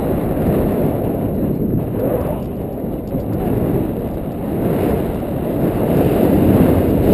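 Wind buffeting the camera microphone in paraglider flight: a loud, low rumble that swells and eases, strongest near the end.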